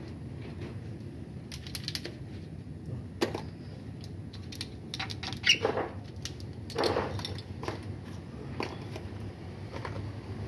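Metal tools and parts clinking and knocking during engine repair work, irregular clicks with a few louder knocks around the middle, over a steady low hum.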